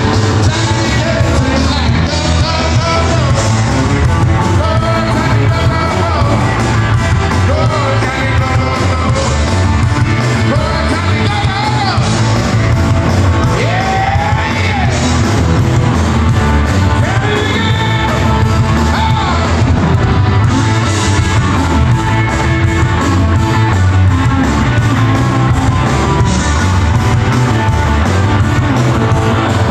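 Live rock band playing loud through the PA in a large hall, with electric guitars, bass guitar, drums and keyboards, and singing over the top.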